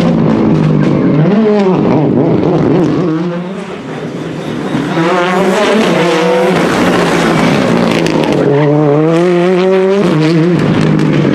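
Ford Fiesta R5 rally car's turbocharged 1.6-litre four-cylinder engine at full stage pace, revs climbing and dropping sharply through quick gear changes, with sharp pops between shifts. It fades briefly about four seconds in, then comes back loud.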